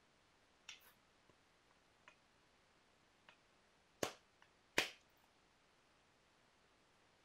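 Flintknapping on a piece of Rainy Buttes stone: a few light, sharp ticks of tool on stone, then two louder sharp strikes less than a second apart about four seconds in.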